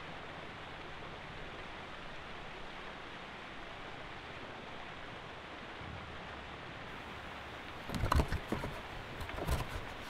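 Steady outdoor background hiss, then near the end a cardboard box being handled and torn, crackling in a few short bursts.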